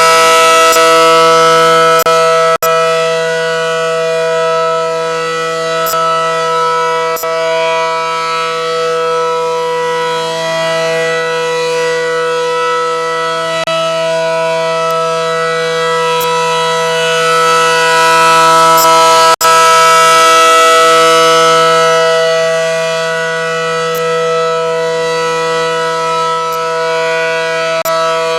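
Allertor outdoor warning siren sounding its steady alert tone in a test, several steady pitches at once. The rotating siren head makes it swell louder near the start and again about two-thirds through, easing off in between. The recording's sound cuts out for an instant twice.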